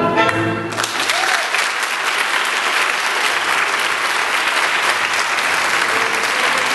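Recorded tango music ends on its final notes less than a second in, and an audience breaks into steady applause.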